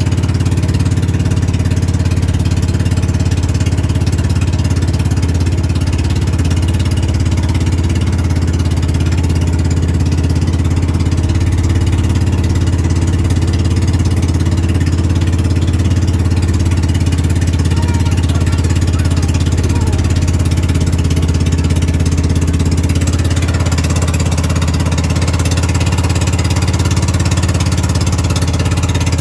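Engine of a motorized bangka (Philippine outrigger boat) running steadily with the boat under way, a low, even drone.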